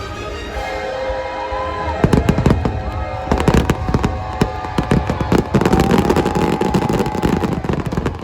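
Fireworks bursting in fast, dense crackling volleys that start about two seconds in, over the show's music with long held notes.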